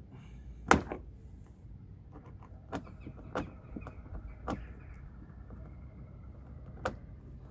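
Hands and tools working on car parts: a handful of sharp clicks and knocks, the loudest about a second in, over a low steady hum.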